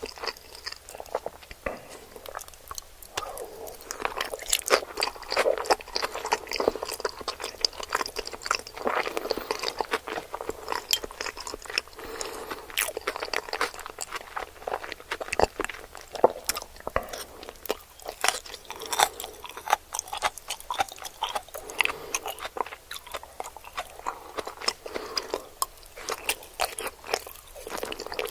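Close-miked chewing of sushi, a steady run of crisp crunching clicks and wet bites.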